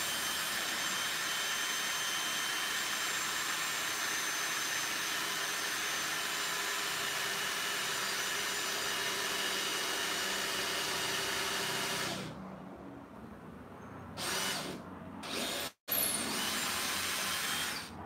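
Handheld power drill running steadily into the wooden platform with a whining motor for about twelve seconds, then stopping; a few shorter runs follow near the end.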